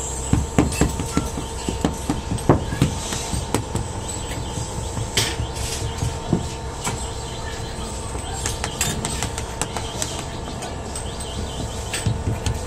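Moulding sand being packed and rammed by hand into metal casting flasks: a run of irregular dull thumps and knocks, thickest in the first few seconds, over a steady mechanical hum.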